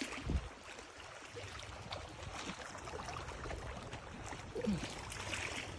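Wind buffeting the microphone over the steady wash of lake water, with a short faint gliding sound about four and a half seconds in.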